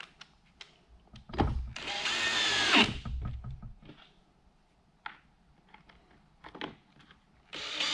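Cordless drill-driver briefly running screws into the plastic HVAC blend-door box case: one whining run about two seconds in and another starting near the end. Small clicks from handling screws and the case come between the runs.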